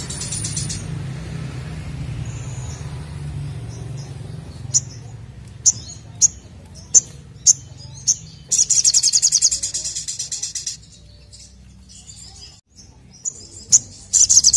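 Caged sogok ontong singing: sharp single chirps about half a second apart, then a loud, fast trill lasting about two seconds, with a few more chirps and another trill starting near the end.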